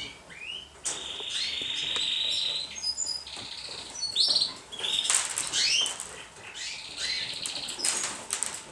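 Young pigeons in a loft making high, squeaky begging peeps, with one long, drawn-out squeal about a second in, among wing flaps and scuffling.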